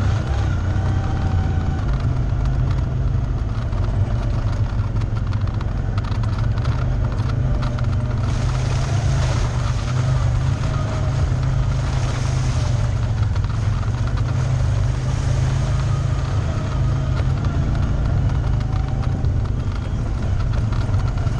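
ATV engine running steadily while riding along, a constant low drone with no let-up.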